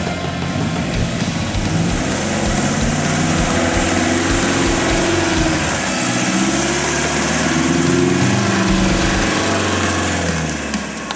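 Toyota 4Runner's 2.4-litre naturally aspirated diesel engine revving under load as the truck climbs up out of a mud hole, its pitch rising and falling again and again. It grows louder as the truck drives close past, then eases near the end.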